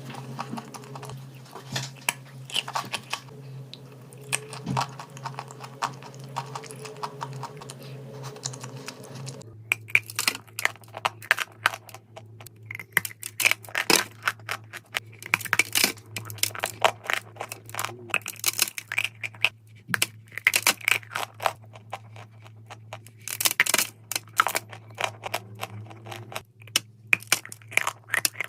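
Dry chalk clay crunching close to the microphone: a dense, irregular run of crisp cracks and crackles, denser and sharper after a cut about nine and a half seconds in, over a faint steady hum.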